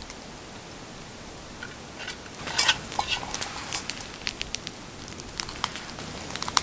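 Wood campfire crackling, with irregular sharp pops and snaps over a soft steady hiss and a brief flurry of crackles partway through.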